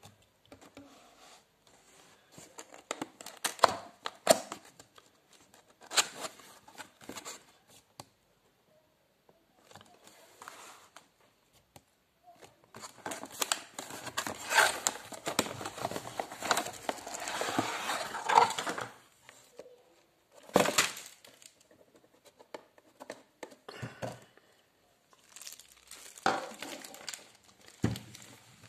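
Cardboard box being opened and its packaging handled: irregular crinkling and tearing rustles of cardboard and plastic wrap, densest for several seconds in the middle, with a few short sharp knocks after that.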